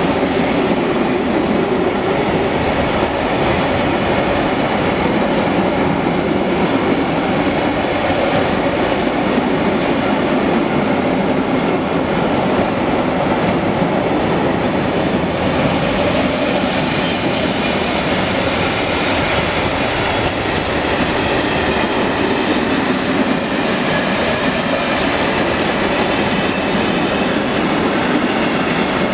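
Freight train of open-top wagons passing close by at speed: a steady, loud rumble and clatter of wheels over the rails. The sound shifts slightly about halfway through.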